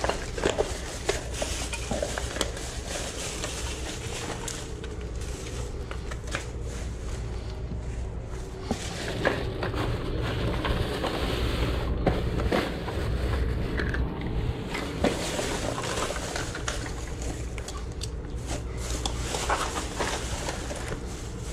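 Plastic garbage bags rustling and crinkling as gloved hands rummage through them, with frequent small clicks and clatter of packaged items knocking together, over a steady low hum.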